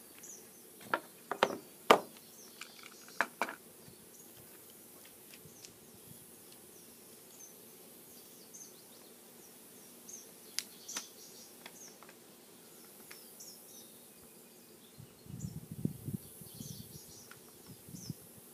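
Quiet outdoor ambience with faint, scattered bird chirps. A handful of sharp clicks and knocks come in the first few seconds, and a stretch of low rustling comes near the end.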